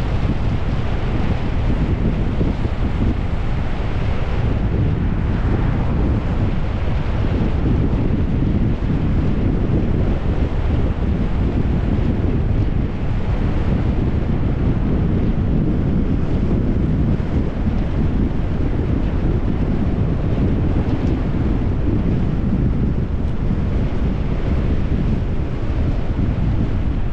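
Loud, steady wind buffeting on an action camera's microphone as a bicycle coasts fast downhill, a low, unbroken rumble.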